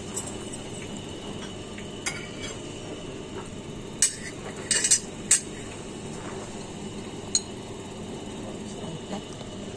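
Metal serving tongs and dishes clinking at a stainless steel buffet chafing dish: a handful of sharp clinks, the loudest cluster about four to five and a half seconds in, over a steady background hum.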